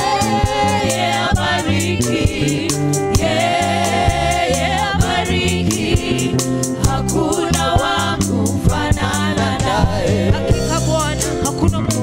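Gospel praise-and-worship singing: a woman's lead vocal into a microphone with backing singers, over a band with steady bass notes and a regular drum beat.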